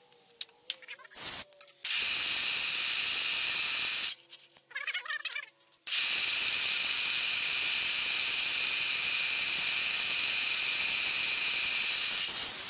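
Compressed air blowing metal chips off a mill vise and aluminium plate: two steady hisses that start and stop abruptly, one of about two seconds and a longer one of about six seconds. Brief mechanical whirring and clicks sound before and between them.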